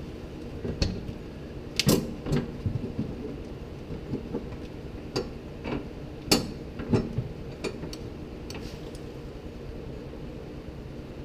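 Jeep Wrangler JKU's plastic evap canister knocking and clicking against its mounting bracket as it is pushed up by hand and seated in place: about ten short, sharp knocks spread irregularly over a steady low hum.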